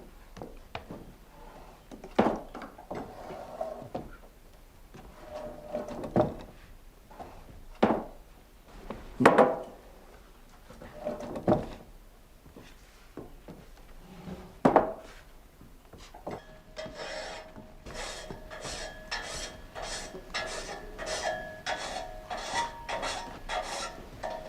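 A water-wheel-driven vertical frame saw at work in a wooden mill. For about two-thirds of the time there are scattered wooden knocks and creaks, then a steady rhythmic rasp of the blade sawing timber, about two strokes a second, with squeaks.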